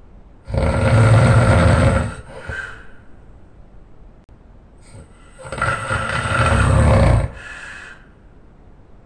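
A man snoring very loud: two long snores about five seconds apart, each followed by a shorter, softer breath sound.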